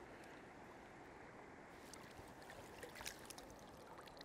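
Faint, steady rush of river water flowing past, with a few small light splashes from about two seconds in as hands release a grayling back into the current.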